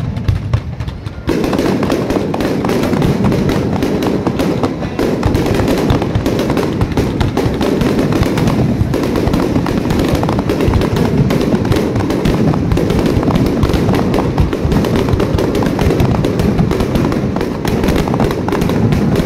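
Aerial fireworks shells bursting in a dense, continuous barrage of rapid overlapping bangs and crackle, setting in about a second in after a couple of single bangs.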